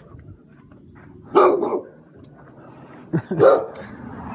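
A dog barking: two loud barks about two seconds apart.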